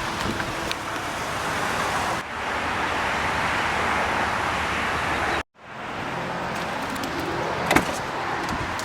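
Steady rushing background noise with no engine note, broken by an abrupt dropout about five and a half seconds in, then a single sharp click near the end.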